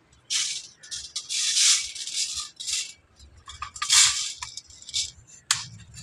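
Dry raw rice grains pouring onto a steel plate and being scooped with a steel cup, rattling and hissing in a series of rushes, with a short click near the end.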